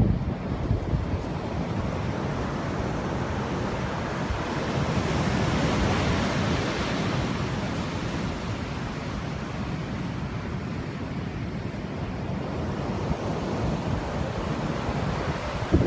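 Sea waves washing onto the shore, with wind buffeting the microphone. The surf swells louder about five to seven seconds in, then settles back.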